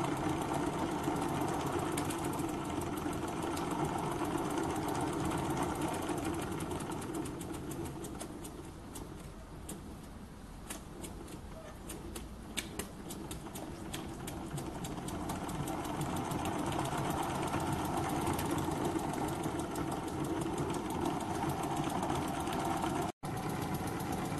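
Small live-steam oscillating (wobbler) model steam engine running with a fast, even rhythm. A third of the way in it slows and goes quieter, with a few sharp clicks, then picks back up. The builder thinks it still needs to purge water from the system.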